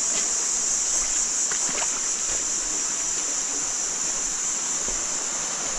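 A river's water rushing steadily over rocks, with a few faint splashes about a second and a half in.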